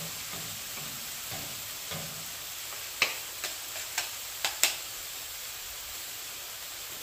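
Chicken strips, bell peppers and onions sizzling steadily on a hot Pit Boss flat-top griddle. Between about three and four and a half seconds in, spatulas clack sharply on the steel plate, five or six times.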